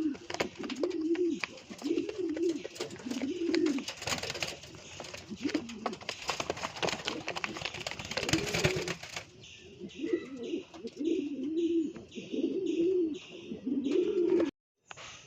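Fancy pigeons cooing: low, arching coos repeated about once a second. Crackly, scratchy noise sits over the coos for the first nine seconds, then the sound changes abruptly and cuts out briefly near the end.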